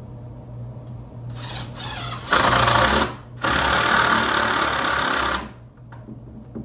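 Handheld power drill running in short bursts: two quieter brief runs, then two loud runs of about one and two seconds with a short pause between them.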